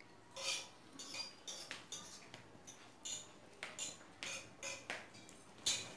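Eating utensils clinking and scraping against a plate or bowl in a string of short, irregular taps while noodles are eaten.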